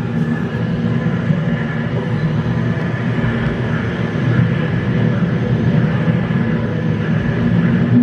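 Steady low rumble with a faint droning hum from an immersive art installation's soundscape, like a train running underground.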